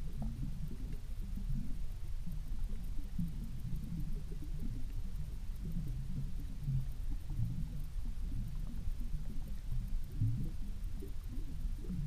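Low, irregular underwater rumble heard through a submerged camera on a canal bed, with no high sounds.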